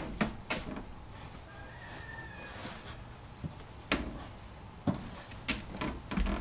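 Handling noise from two people working on a steel scaffold while holding up fiberglass batt insulation: scattered light knocks and taps, about half a dozen, over a low background.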